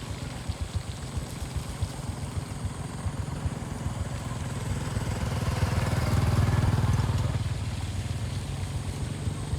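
A small engine running with a rapid pulsing beat, growing louder to a peak about six seconds in and then easing off.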